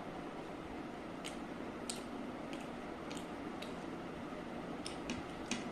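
Eating sounds of chicken biryani being eaten by hand: scattered soft, wet clicks and squishes at irregular intervals over a steady low background hiss.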